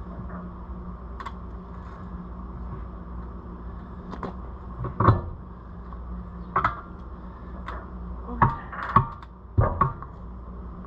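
Tire irons clanking against a steel tractor wheel rim as the tire bead is pried over it: about nine sharp metal knocks at uneven intervals, the loudest about five seconds in and several close together near the end, over a steady low hum.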